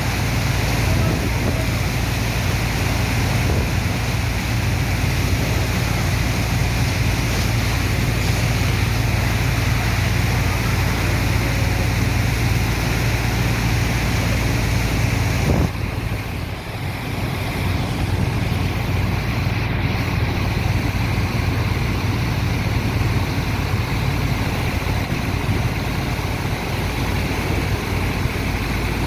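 Sand-dredger pump's heavy engine running steadily with a low hum, under a constant rushing noise. The sound drops suddenly a little past halfway and comes back a second or two later.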